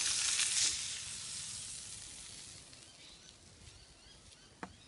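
Tilapia fillets sizzling in butter on a hot plate over a campfire, loud at first, then fading steadily over the next few seconds as a fillet is lifted off with a spatula. A single short click near the end.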